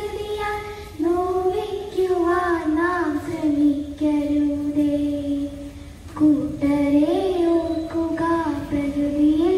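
A child singing a slow melody with long held notes, pausing for breath about a second in and again around four and six seconds in.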